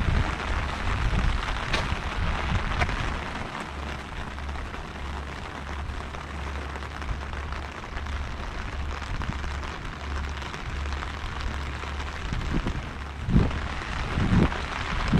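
Steady rain falling on wet tarmac, with a low rumble underneath and a couple of low bumps near the end.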